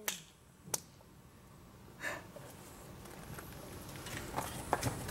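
Three-week-old kittens suckling at their mother cat, making faint irregular clicks and smacks that come more often near the end.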